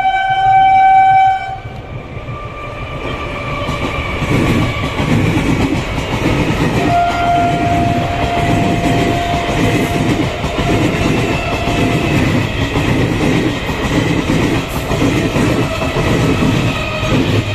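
Horn of an Eastern Railway electric local train sounding one steady note that stops about a second and a half in. The train then runs past, its wheels clattering rhythmically over the rail joints.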